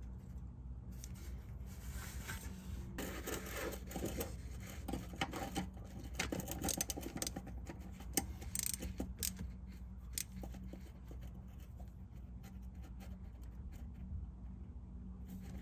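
Ratchet and socket tightening a new glow plug into a Duramax diesel's cylinder head: irregular runs of light metallic clicks and scraping in short strokes, thickest in the middle and thinning out toward the end.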